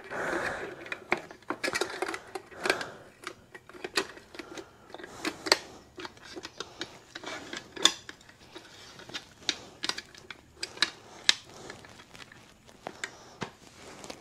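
Irregular clicks and light knocks of a motorcycle headlamp assembly and its chrome trim ring being handled and worked into place, the parts resisting; the sharpest knock comes about eight seconds in.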